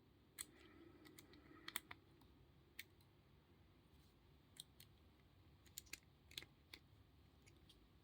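Faint, scattered small clicks and taps of a pin-tumbler padlock and its picking tools or keys being handled, about ten over the stretch, against near silence.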